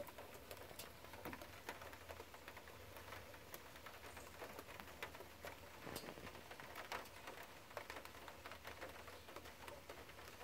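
Light rain, heard as faint, irregular drips and ticks over a soft hiss.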